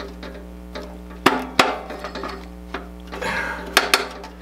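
Metal knocks and a scrape from a Boice-Crane bandsaw's upper-wheel tension slide bracket being forced by hand in its guides: two sharp clacks about a second in, a short scrape, then two more clacks near the end. The slide is jammed because its keys popped out under over-tensioning, and it is being worked free.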